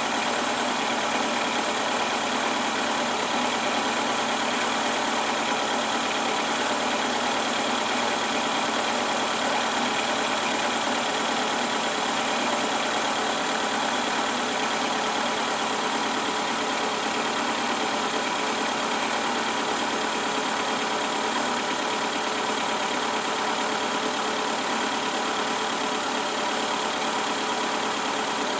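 2002 Fiat Stilo's 1.6 16V four-cylinder petrol engine idling steadily, running with a faulty lambda (oxygen) sensor that throws code P0130.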